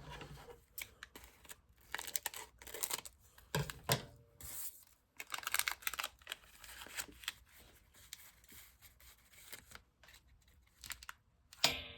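Foil wrapper of a 2024 Topps Archives baseball card pack being opened by hand: irregular crinkling and tearing of the wrapper in short spurts.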